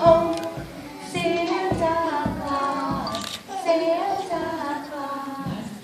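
A group of young children singing a Christmas song together.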